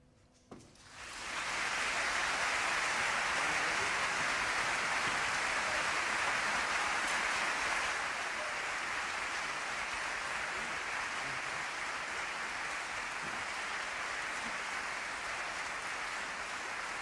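Audience applauding, swelling in about a second in after a short silence and easing a little about eight seconds in.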